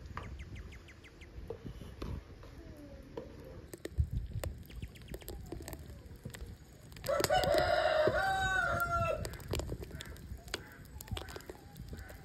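A rooster crowing once, one call of about two seconds starting about seven seconds in, over scattered light clicks and taps.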